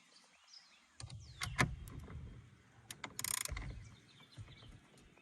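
Light metallic clicks followed by a short rattling burst about three seconds in: hand tools and parts being handled while a steering-wheel hub bolt is fitted.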